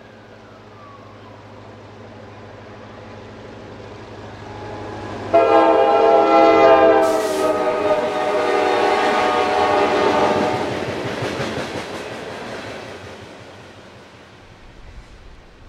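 Freight train locomotive horn, an EMD GP38-2, sounding a multi-note chord that starts suddenly about five seconds in and is held for about five seconds with a short dip partway. Under it, the rumble and clicking of the freight cars' wheels on the rails rises as the train passes and fades away near the end.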